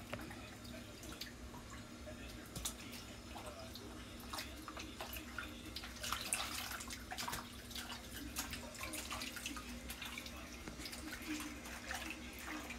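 Water splashing and dripping in a small plastic basin as a kitten is washed in it by a gloved hand, in short irregular splashes that bunch together around the middle.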